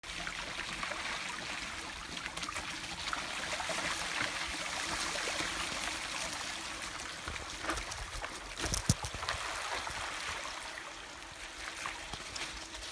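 Shallow stream running over stones, a steady rushing of water. A few sharp knocks stand out about nine seconds in.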